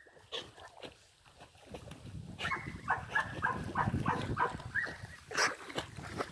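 Pointer dog whining in a quick run of about eight short, high whimpers, over a low rustling noise.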